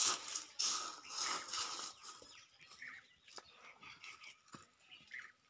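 Rustling and crackling of fallen papaya leaves and stalks as someone moves through them and handles the fruit. It is loudest in the first two seconds, then settles into scattered soft clicks and rustles.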